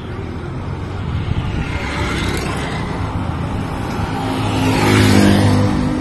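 Road traffic running steadily, with a vehicle passing close by and loudest about five seconds in, its engine note swelling and then fading.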